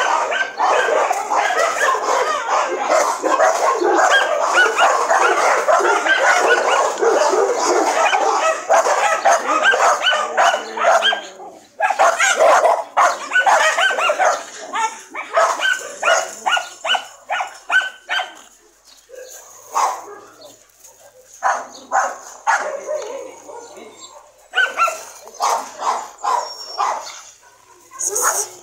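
Many dogs barking at once, a dense overlapping chorus for about the first ten seconds, then quick runs of separate barks that grow sparser toward the end.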